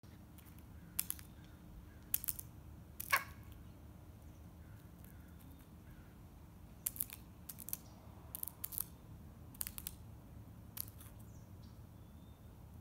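Crow's beak pecking and tapping at a peanut on asphalt: short, sharp clicks, single ones in the first few seconds and quick clusters from about seven to eleven seconds in.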